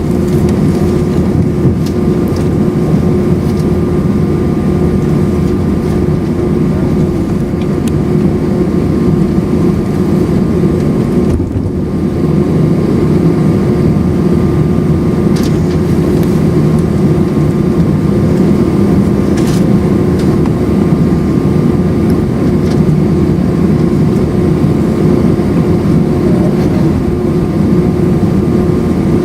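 Airbus A319's IAE V2500 jet engines heard inside the cabin from a window seat: a loud, steady drone with a steady hum running through it and a couple of faint clicks.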